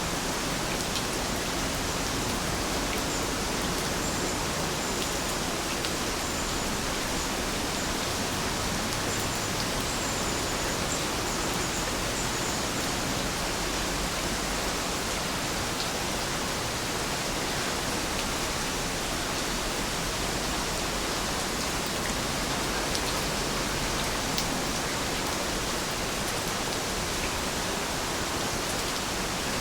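Steady rain falling, an even hiss that does not rise or fall.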